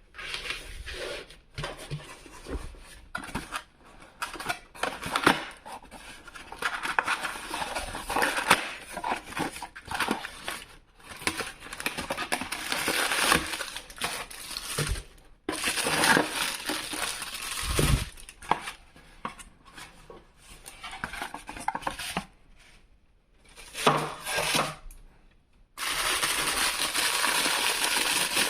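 Plastic and cardboard toy packaging being handled and opened: irregular rustling, crinkling and light clicking and clattering. Near the end a steady rushing noise starts suddenly.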